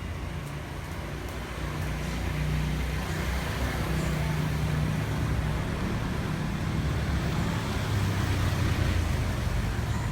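Steady low rumble of a running motor-vehicle engine, getting louder about two seconds in.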